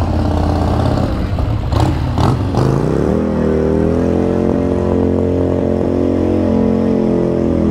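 Motorcycle engine running, with a couple of sharp cracks about two seconds in, then revved up and held at high revs in one loud steady note.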